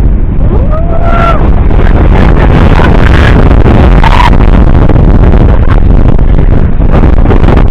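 Strong wind buffeting the microphone: a loud, continuous low rumble and rushing that does not let up.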